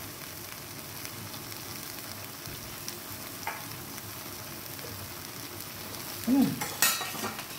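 Pork and cabbage curry simmering in a wok over a gas burner, a steady hiss of cooking liquid. A brief clatter with a couple of sharp knocks comes near the end.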